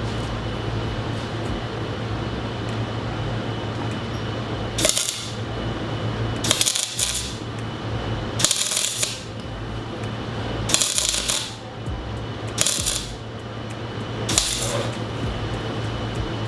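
Arc welder laying short stitch welds on steel, six bursts of crackling, each under about a second, over a steady low hum.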